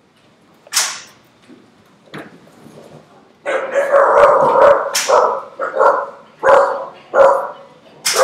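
Puppy barking during play: a long call about three and a half seconds in, then a string of short, high-pitched barks about one every second to the end. A short sharp sound comes about a second in.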